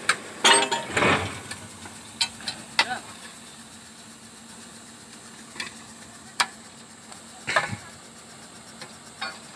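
Irregular sharp knocks and clanks at a truck-mounted borewell drilling rig, several in the first second and the rest scattered, over a faint steady hum.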